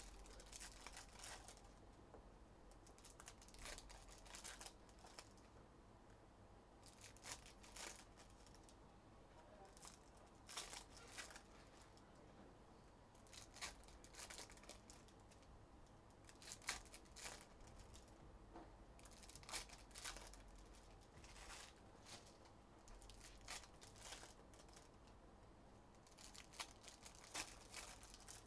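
Faint tearing and crinkling of plastic wrapping as trading-card boxes and packs are opened by hand. It comes in short crackling bursts every few seconds.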